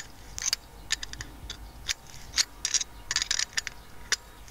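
Open-end spanner turning a nut on a threaded U-bolt of an antenna mounting bracket, making a run of short, irregular metallic clicks and scrapes as it is worked and repositioned.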